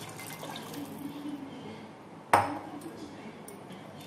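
Tamarind water poured from a glass bowl into an aluminium kadai, the liquid splashing into the pan. About two seconds in, one sharp clink of a utensil against the pan.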